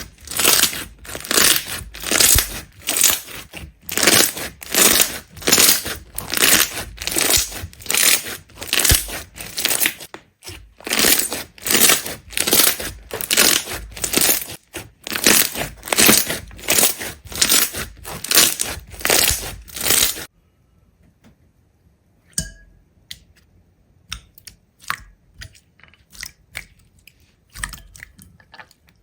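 Rhythmic crunching, about two strokes a second, that stops abruptly about two-thirds of the way through, followed by faint scattered clicks and small taps.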